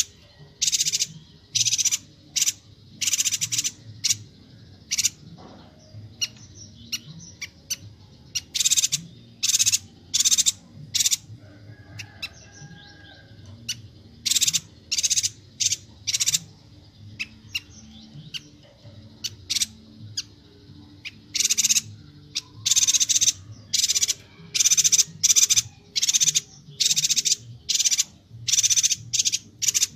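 Chestnut-crested yuhina (Bornean yuhina) calling continuously. Its short, high chirps come in quick runs of several, separated by short pauses, over a faint steady low hum.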